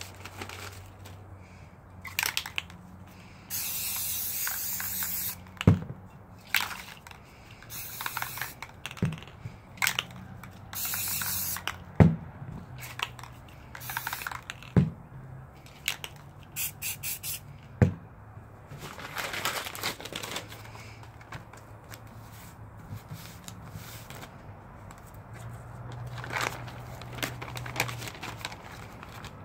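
Aerosol spray paint can hissing in short bursts, one of them held for about two seconds. Several sharp single knocks come between the bursts and are louder than the spraying.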